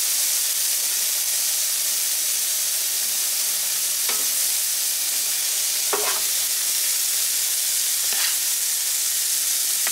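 Shrimp, onions, mushrooms and green bell pepper sizzling steadily in butter on a Blackstone E-Series electric griddle, with a spatula scraping across the griddle top a few times.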